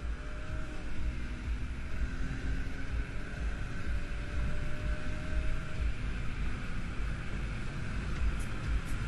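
Car interior at high speed under hard acceleration: a faint engine tone climbing slowly through a gear, buried under heavy, choppy road and wind rumble.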